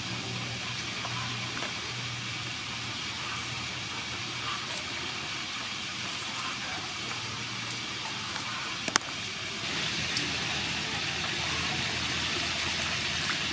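Water poured into a steel bowl of peeled cucumbers and mint leaves, starting about ten seconds in, over a steady low background hum; one sharp click just before the pour.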